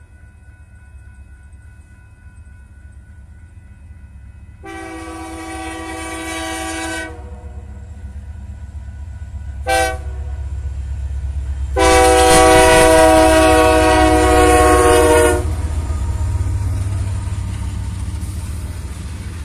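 Union Pacific freight locomotive's multi-chime air horn sounding a long blast, a short one and a final long, loudest blast, the close of a grade-crossing signal. Under it the diesel locomotives rumble, growing louder as they pass close by, then easing off.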